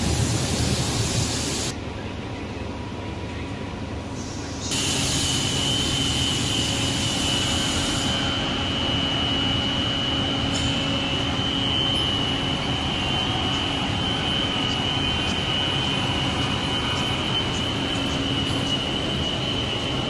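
Soft-shaft bending glass tempering furnace running: a steady mechanical rumble with a steady high whine. The level shifts abruptly twice in the first five seconds, and a loud hiss joins in from about five to eight seconds in.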